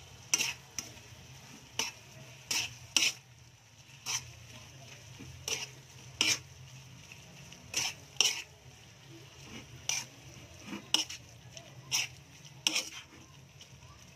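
A spatula scrapes and clacks against a metal wok as thick, oily sautéed shrimp paste with pork is stirred, in irregular strokes about once a second. Faint sizzling of the frying paste runs underneath.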